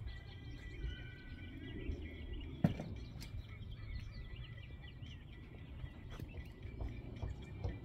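Outdoor ambience of small birds chirping over a low rumble of wind on the microphone, with one sharp click about two and a half seconds in.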